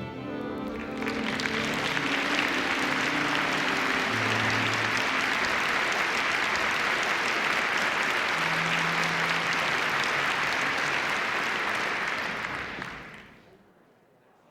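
Applause, swelling up about a second in over a few low musical notes, holding steady, then fading out near the end.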